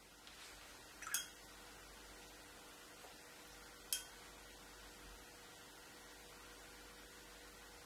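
Quiet steady hiss with a faint hum, broken by two short, sharp clicks, one about a second in and one nearly three seconds later.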